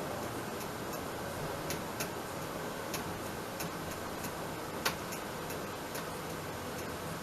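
Faint, evenly spaced clicks, about three every two seconds, over a steady hiss, with one sharper click near the end.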